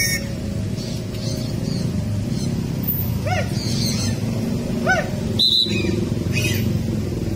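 Background music, with a few short rising-and-falling notes, one about three seconds in and another about five seconds in.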